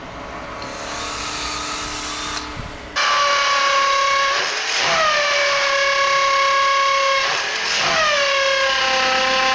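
High-speed electric power tool cutting a groove so the screw heads sit hidden: a hiss that builds, then a loud, high-pitched motor whine from about three seconds in, its pitch sagging twice as the cutter bites.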